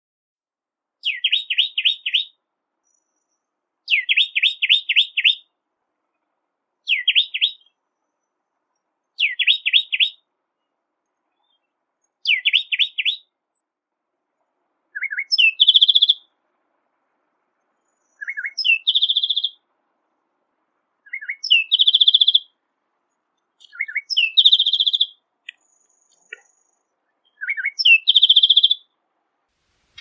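Bar-winged wood wren (Henicorhina leucoptera) singing: ten short phrases a couple of seconds apart. The first five are quick runs of falling whistled notes. The later ones open with a lower note and end in a rapid high trill.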